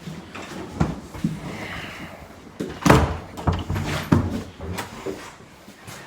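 Several separate knocks and thumps, the loudest about three seconds in, with a few more following about every half second.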